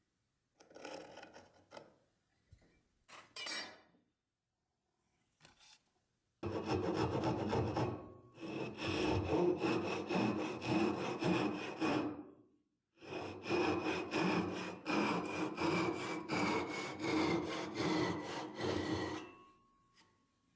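Handsaw cutting across a wooden block in quick back-and-forth strokes. The sawing starts about six seconds in, pauses briefly midway, and stops near the end. Before it come a few short scraping strokes of a blade scoring a line along a steel square.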